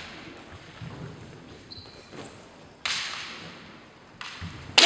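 Kendo bout in a large echoing sports hall: a lull broken by a couple of sharp knocks that ring on in the hall, then, just before the end, a loud kiai shout breaks out.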